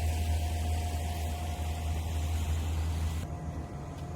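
An engine running steadily: a low hum with a thin steady whine above it. The hiss over it drops off suddenly about three seconds in.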